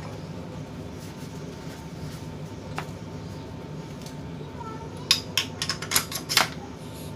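A steady low hum, with a quick cluster of sharp clicks and knocks about five seconds in.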